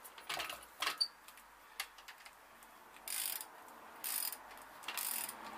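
Ratchet wrench clicking in three short runs as it is swung back and forth, running up ARP connecting-rod bolts on a Classic Mini 1310cc engine. There are a few separate metal clicks in the first two seconds.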